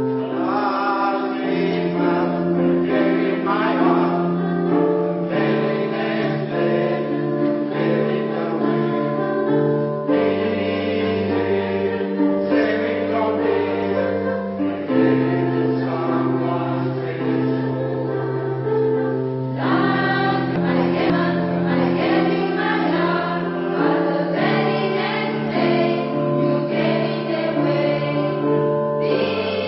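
Polyphonic choir singing, holding sustained chords in several voice parts that move to new chords every few seconds.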